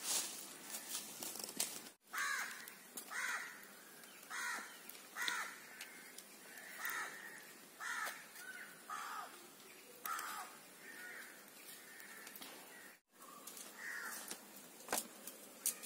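A crow cawing repeatedly, short falling calls about once a second, pausing near the end and then calling again.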